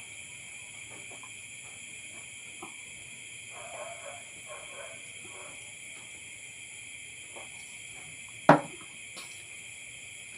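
Steady high-pitched chirring of crickets or other night insects, with one sharp knock about eight and a half seconds in.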